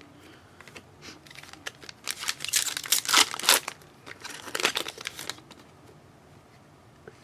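Trading-card pack wrapper being torn open and crinkled by hand: a run of crackling, rustling tears lasting a few seconds.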